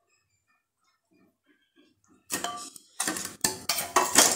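Steel kitchen utensils clinking and clattering. After about two seconds of near quiet with a few faint taps, there is a quick run of five or so sharp metallic knocks with a brief ring, like a spoon and steel bowls being handled while spices are added to a marinade.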